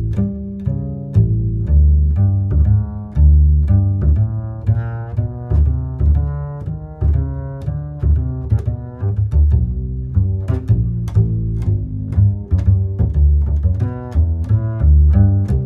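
Background music with a deep bass line of short, plucked-sounding low notes in a steady rhythm, with light ticking percussion on top.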